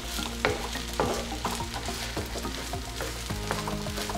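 Wooden spatula stirring and chopping a crumbly ground-rice mixture in a nonstick wok, striking the pan about twice a second over a steady light sizzle of the mixture frying in coconut oil.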